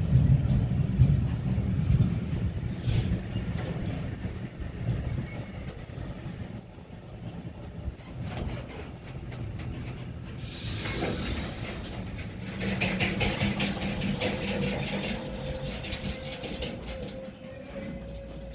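Freight train of sliding-wall wagons rolling past, its wheels rumbling and clattering over the rails. The rumble is strongest at first and fades, giving way to a run of rapid clicks and clacks from the wheels, with a short burst of hiss about ten seconds in.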